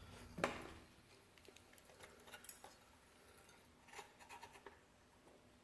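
Near silence, with one faint click about half a second in and a few faint scattered ticks.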